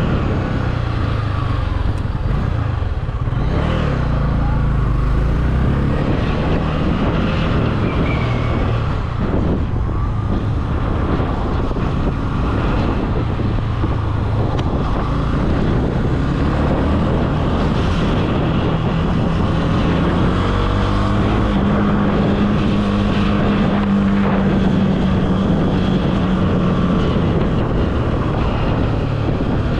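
Honda CB300F's single-cylinder engine running while the motorcycle is ridden, its pitch rising and falling with the throttle and holding steady for several seconds past the middle.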